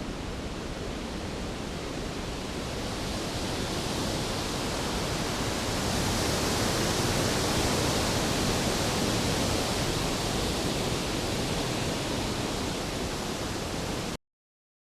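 Storm sound effect: a steady rushing noise with no thunderclaps, swelling midway and then easing a little, before cutting off suddenly near the end.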